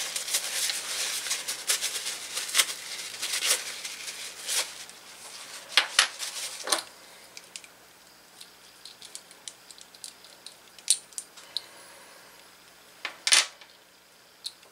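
Small metal parts of a K&B .28 Sportster model glow engine being rubbed clean of castor-oil varnish: a scratchy rubbing with clicks. About seven seconds in it gives way to scattered light metallic clicks and taps as the parts are handled.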